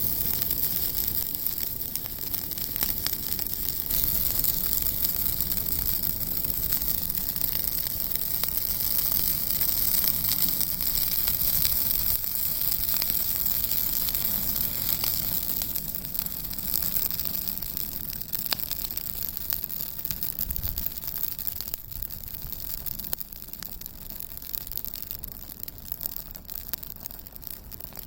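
Campfire burning, a steady hiss with many small crackles and pops from the burning wood, growing quieter toward the end.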